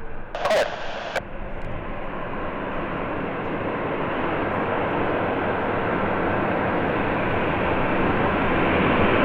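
Airbus A350-941 jet engines running, a steady rush that grows gradually louder as the aircraft draws nearer.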